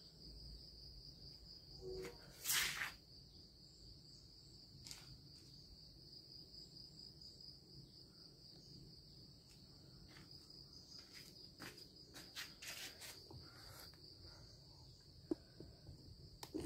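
Quiet background with a steady high-pitched trill of insects such as crickets. A couple of brief noises break in about two and a half and thirteen seconds in; the brush cutter's engine is not running.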